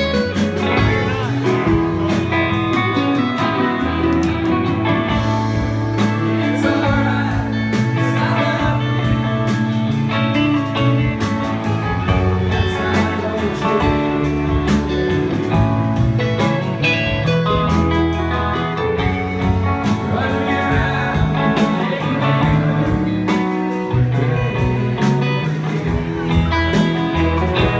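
Live rock band playing: electric guitars, electric bass and drums, with a male lead vocal singing over them.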